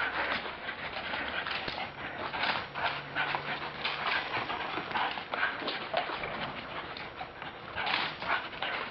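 Greyhound sprinting laps: a quick, uneven patter of paw strikes.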